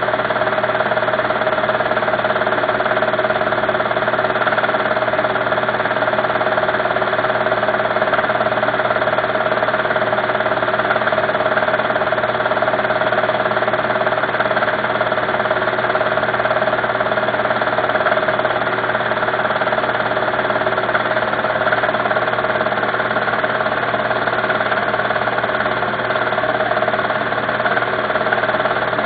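A steady mechanical hum with a constant pitch, unchanging in level throughout.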